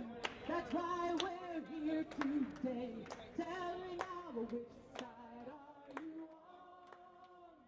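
Voices singing a protest song, kept in time by claps about once a second, fading out toward the end.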